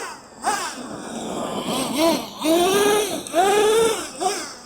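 Traxxas T-Maxx 3.3 nitro monster truck's small two-stroke nitro engine revving up and easing off again and again as the truck is driven, a high-pitched engine note rising and falling several times. The two-speed transmission seems not to be shifting into second gear, so the engine revs high.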